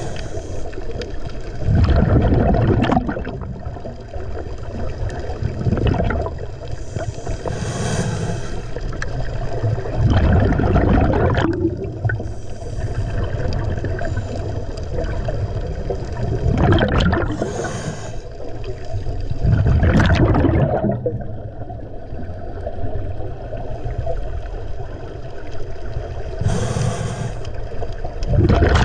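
Scuba diver breathing through a regulator underwater: a hissing inhale about every nine seconds, each followed a second or two later by a loud bubbling exhale.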